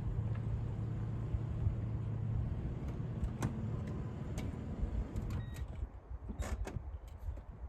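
First-generation Toyota Tundra pickup driving, a steady low rumble of engine and road noise with scattered knocks and rattles. The rumble fades about six seconds in as the truck slows.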